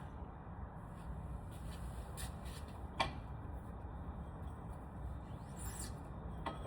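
A few faint, sharp clicks of tools on metal, about three seconds apart, over a low steady hum, as the engine is worked on by hand with its starter and spark plugs out.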